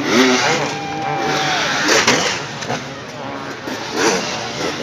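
Enduro dirt bike engine revving hard in three short bursts, about two seconds apart, as the rider forces the bike over a log-and-tyre obstacle.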